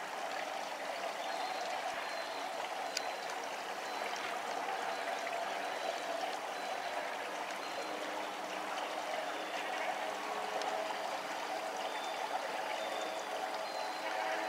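Steady running, trickling water.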